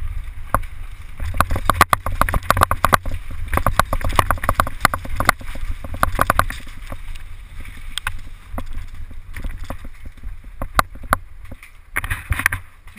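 Mountain bike ridden fast down a rough dirt forest trail, heard from a camera mounted on the rider. Wind rumbles on the microphone under a constant irregular clatter of clicks and rattles from the bike jolting over the ground, busiest in the first half. A short rush of noise comes near the end.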